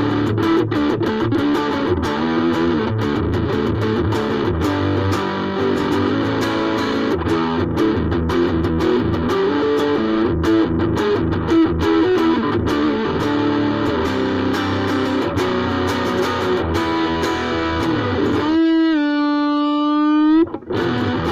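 Ibanez AXS42 electric guitar, freshly rewired with vintage solid-core wire, played with some distortion: a busy run of picked notes and chords. Near the end it settles on one long held note that rises slightly in pitch before being cut off.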